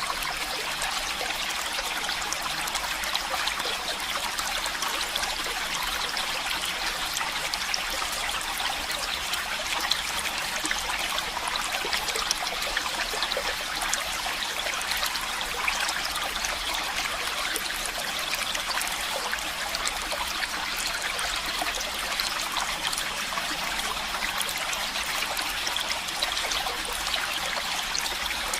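Shallow stream water flowing and trickling in a steady, continuous rush with fine bubbling detail.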